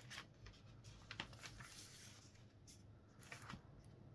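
Near silence: room tone with a low hum and a few faint, scattered clicks and rustles.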